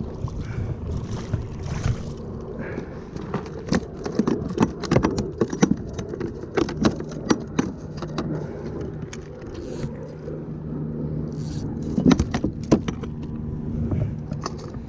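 A rapid string of sharp clicks and knocks, thickest in the middle and again about twelve seconds in, over a low steady hum.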